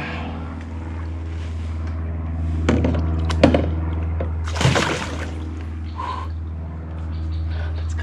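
A zander splashing at the water's surface several times as it is held alongside the boat and released, over a steady low motor hum from the boat.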